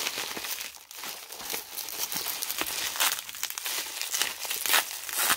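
Packing material crinkling and rustling in irregular crackles as the jewelry lot is worked out of its shipping box.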